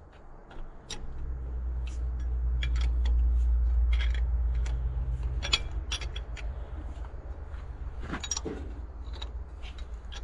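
Metal wrench clicking and clinking irregularly against the bolt heads while the belt pulley housing's mounting bolts are turned in on an Allis-Chalmers D17 tractor. Under it runs a low rumble that is strongest in the first half.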